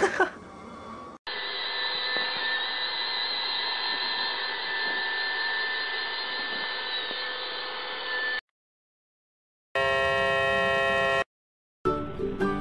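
Robot vacuum running with a steady motor whir for about seven seconds. After a short pause comes a brief held tone of about a second and a half, and near the end music begins.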